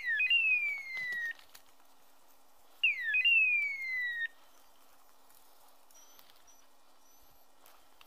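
A loud, high, raptor-like screeching call, given twice about three seconds apart: each a short falling note then a longer falling cry lasting about a second.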